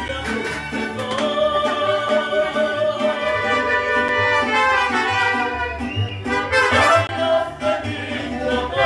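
Mariachi band playing, with trumpets carrying the melody over a steady bass.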